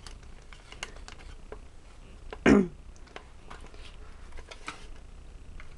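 Faint scattered clicks and taps from handling the open back of a Polaroid 195 pack-film camera. About two and a half seconds in there is one louder, short sound that falls in pitch.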